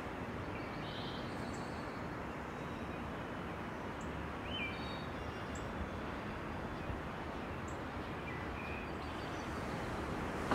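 Steady background ambience with a few short, faint bird chirps scattered through it.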